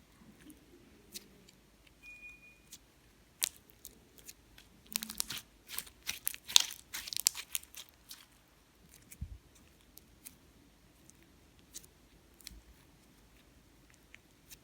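Slime being played with by hand: scattered sticky clicks and pops, building into a dense run of crackling, crunchy bursts in the middle, then thinning out again.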